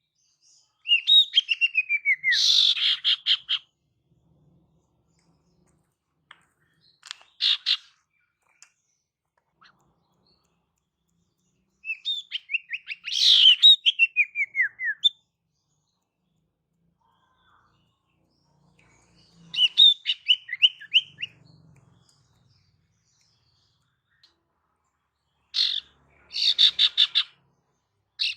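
Female sirtu (common iora) call used as a lure: short phrases of quick chattering notes that slide down in pitch and end in a fast trill, repeated about every five to six seconds.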